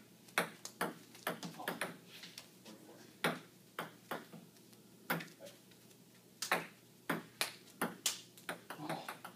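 Table tennis rally played with Rubik's cubes as paddles: a run of sharp clicks as the ball strikes the cubes and bounces on the table top.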